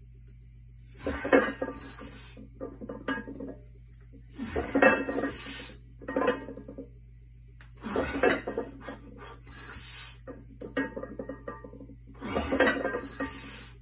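Black iron weight plates on a barbell loaded to 315 lb clanking and rattling through heavy back squat reps, about one rep every three and a half seconds. Four reps are heard, each a burst of ringing metal clinks with a low thud, and lighter rattles between them.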